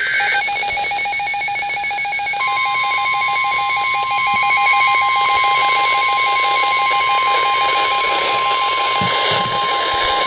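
Emergency Alert System warning tones for a severe thunderstorm warning: rapidly pulsing electronic beeps throughout. About two seconds in they are joined by a steady single-pitch alert tone that holds on unbroken.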